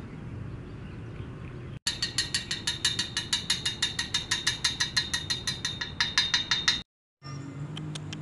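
Rapid, even ticking like a ratchet, about seven sharp clicks a second, starting abruptly about two seconds in and cutting off suddenly near the end.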